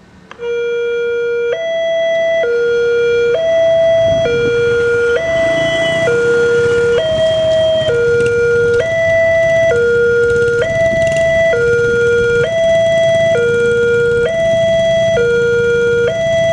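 Railway level-crossing warning alarm switching on about half a second in: an electronic two-tone signal alternating steadily between a low and a higher note, each held just under a second. It signals an approaching train as the crossing barriers lower.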